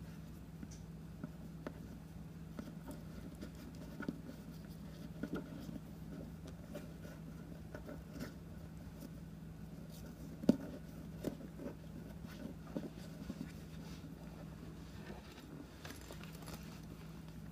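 Faint rustling and small clicks of paracord being handled and knotted around a rubber boot, over a steady low hum. One sharper click stands out about ten and a half seconds in.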